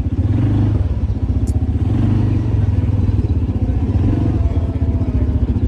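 Quad bike (ATV) engine running steadily at low speed with a rapid, even low chug.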